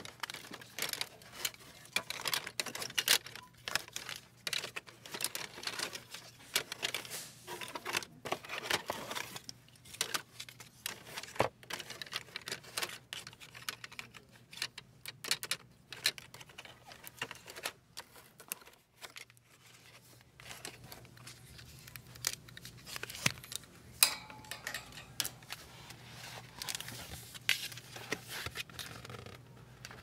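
Hands rummaging through a box of hard plastic Easter egg tongs on card-backed tags, the pieces clicking and rattling against each other in quick, irregular taps. Near the end, the stiff pages of a board book are handled and turned.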